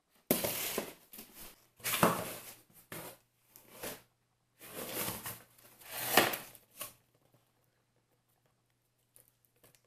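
Cardboard shipping boxes handled and rubbed together, giving several bursts of rustling and scraping over about seven seconds, then quiet apart from a faint low hum.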